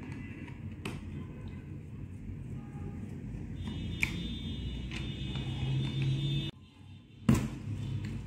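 Small clicks and taps of hands and a small tool working at a steam iron's power cable and plastic housing, over a steady low room hum. The hum drops out suddenly near the end, then one sharp knock.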